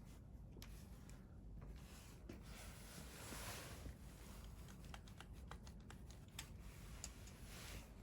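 Wood fire crackling quietly, with scattered sharp pops and ticks that come thickest in the second half and a soft hiss that swells for a moment a few seconds in.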